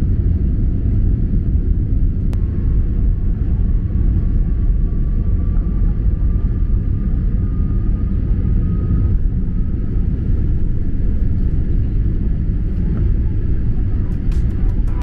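Boeing 787 jet engines at takeoff power, heard from inside the cabin during the takeoff roll: a loud, steady low rumble, with a faint tone that rises slowly over several seconds.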